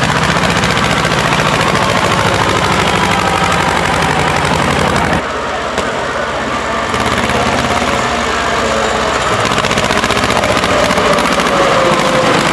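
Tractor engines running with a fast, rough firing beat; about five seconds in the sound drops briefly, then the engines carry on with the pitch shifting.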